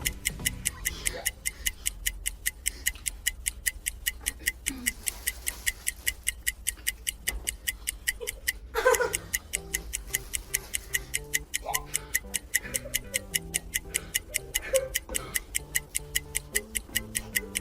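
Ticking countdown-timer music: sharp clock-like ticks about four a second over a low, stepping electronic tune. A brief voice cuts in about nine seconds in.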